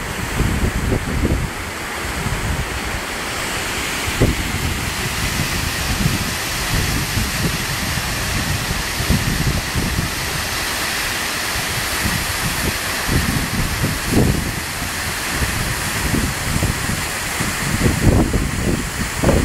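Waterfall rushing steadily, with wind buffeting the microphone in irregular low gusts.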